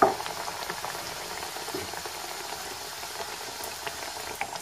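Pişi dough pieces deep-frying in hot oil in a pan: a steady sizzle with many small crackles and pops. A short knock sounds right at the start.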